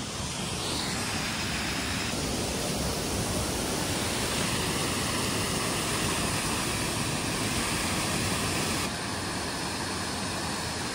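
Waterfall on the Kwisa river rushing steadily over a stone weir, a dense, even roar of falling water. It drops slightly in level about nine seconds in.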